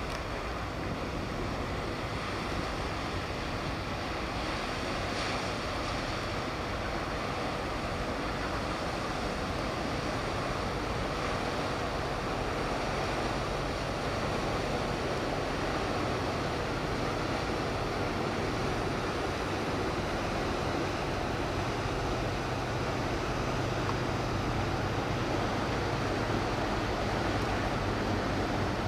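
Hybrid diesel-electric car ferry passing close, its steady low engine drone growing louder near the end, over a constant wash of wind and water noise.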